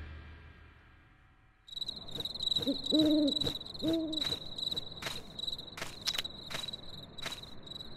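Night-time ambience: an owl hooting a few times over a steady high cricket trill. It comes in after a second or two of near silence.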